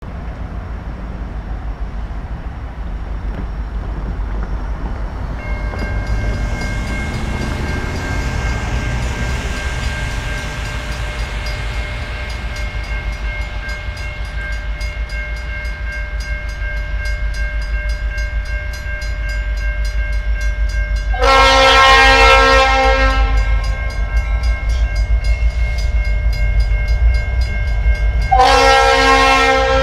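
Air horn of an approaching CN EMD SD75I diesel locomotive sounding two blasts, the first about two seconds long a little over two-thirds in and the second near the end, with an odd, off tone: the horn sounds fouled. Under the horn, the low rumble of the freight train's locomotives grows louder as it comes closer.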